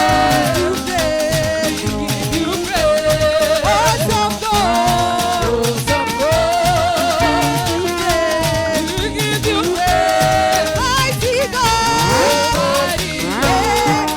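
Live gospel praise music: a melody sung with wavering pitch over a band with a fast, steady drum beat.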